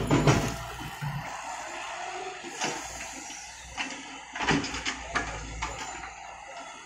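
Caterpillar E120 hydraulic excavator at work: a burst of soil pouring from its raised bucket right at the start, then scattered knocks and clanks.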